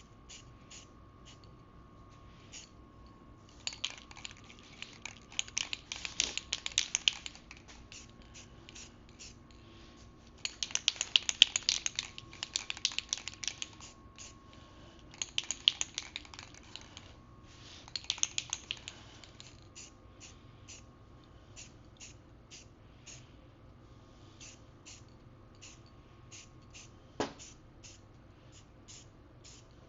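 Krylon aerosol spray paint can spraying in four short bursts of a few seconds each, with scattered clicks between the bursts.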